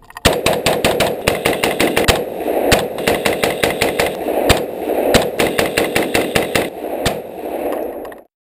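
AR-15 rifle firing rapidly, a long string of shots several a second that stops abruptly near the end.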